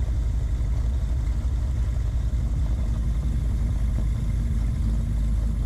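Twin piston engines of a Beechcraft Baron B55 running steadily at low power on the ground, heard from inside the cockpit as a constant low drone.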